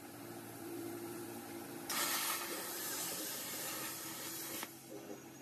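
A CNC plasma cutter's torch fires about two seconds in, a loud, even hiss as the arc cuts through the metal sheet, and cuts off sharply nearly three seconds later. A steady hum runs under it.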